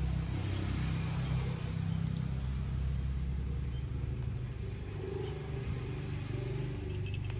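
Motor vehicle engine running steadily at idle: a low, even rumble.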